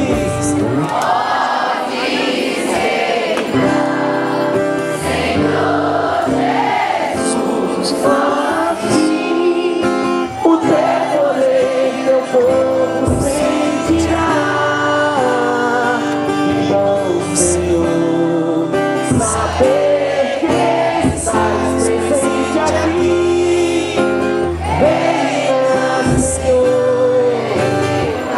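Religious worship song: singing over instrumental accompaniment with a steady bass line.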